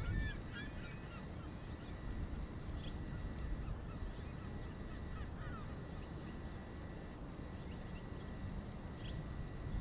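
Distant wild birds calling in short scattered notes over a low steady rumble of background noise.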